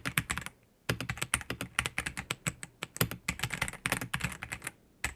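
Typing on an AJAZZ AK820 gasket-mount mechanical keyboard with lubed Ajazz Moon switches: a fast, uneven run of keystroke clacks, with a brief pause about half a second in and another near the end.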